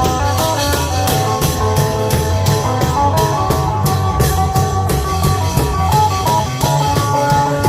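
Isan klong yao long-drum procession band playing fast, upbeat music: a plucked, amplified lead melody over a steady, driving drum beat.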